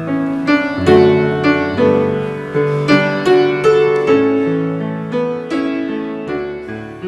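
Piano playing chords and a melody, notes struck at a steady pulse of about three a second, the music gradually growing softer over the last few seconds.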